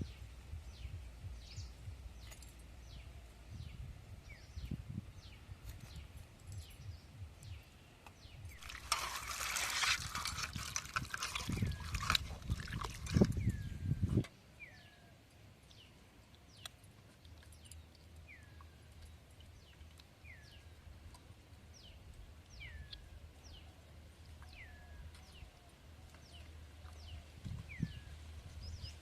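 Birds chirping over and over in short falling notes. About nine seconds in, water pours for around five seconds and then stops sharply.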